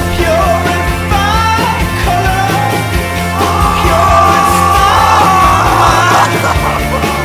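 Rock music soundtrack with a singer yelling the vocal line, holding one long loud note midway through.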